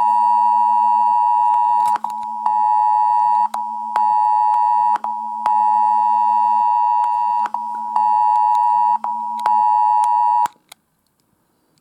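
Smartphone emergency alert sounding: the loud, steady two-tone attention signal of a UK Emergency Alerts test, with the phone's vibration motor buzzing on and off in pulses underneath. It holds for about ten seconds and cuts off abruptly near the end.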